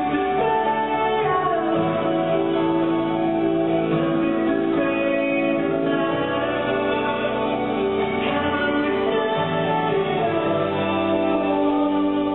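A pop song with singing and guitar, with a drum kit played along to it.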